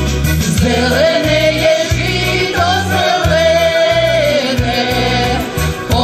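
Women's vocal ensemble singing a song in unison and harmony through microphones, over an instrumental accompaniment with a steady, pulsing bass line.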